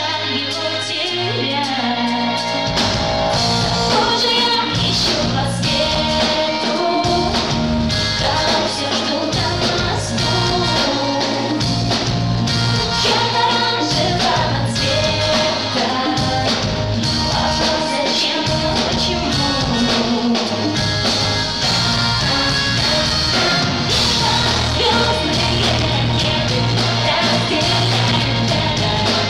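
A live pop-rock band playing, with a woman singing over it. The bass and drums come in about two and a half seconds in.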